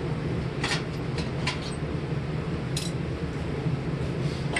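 A few light metallic clinks of steel and tools being handled, about five in the first three seconds, over a steady low hum.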